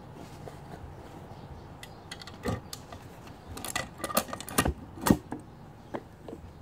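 Sharp metallic clicks and clinks of steel valve-train parts being handled on a Chrysler slant six 225 cylinder head during valve spring reassembly. The clicks start about two and a half seconds in, come thick and fast about two thirds of the way through, and the loudest is near the end.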